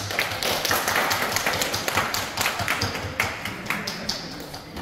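Audience applauding: many hands clapping together, starting suddenly and slowly dying down.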